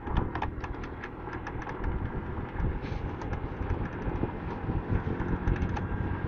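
Motor scooter riding along a concrete road: a steady low engine and road rumble with frequent light clicks and ticks over it.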